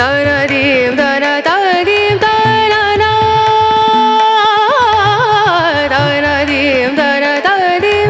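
Background music: a voice singing a slow, ornamented melody with wavering, long-held notes over light drumming.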